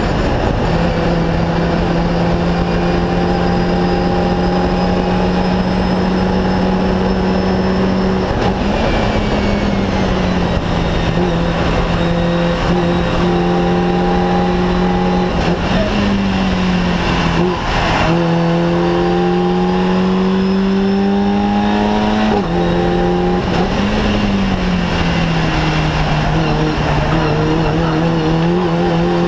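Fun Cup race car engine heard from inside the cockpit, held at high revs for long stretches. The pitch dips and climbs again at gear changes and lifts, about a third of the way in and several more times in the second half, over steady road and wind noise.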